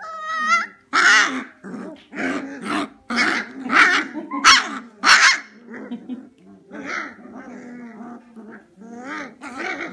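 Old English Sheepdog puppies, nearly four weeks old, yapping and play-growling: a run of short, high barks about every half second, then softer growls from about halfway in.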